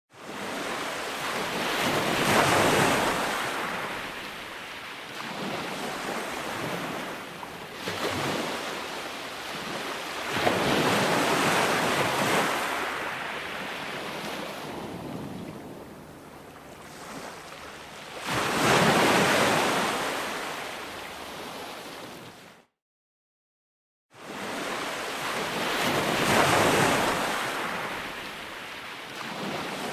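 Ocean surf: waves surging up and washing back in slow swells about every eight seconds, with a steady hiss between them. The sound drops to dead silence for about a second and a half two-thirds of the way through, then the surf starts again.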